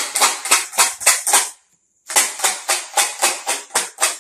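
A bottle sound box filled with small objects being shaken hard, rattling in quick strokes of about four to five a second, in two bouts with a short pause about a second and a half in. A very loud rattle.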